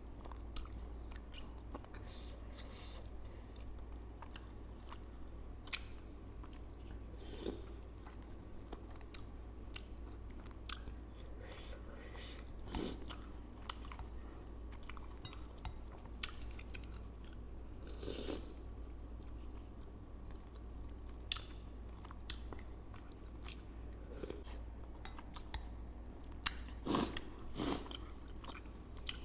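Close-miked chewing of bakso aci with crunchy bits of bone, heard as wet chewing with scattered crunches and clicks. A few louder crunches stand out, two close together near the end. A steady low hum runs underneath.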